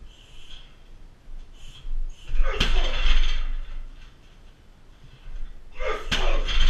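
Two hard shin kicks land on a 60 kg hanging heavy bag, about three and a half seconds apart. Each is a sharp smack followed by a short rattling ring of the bag's chains and frame.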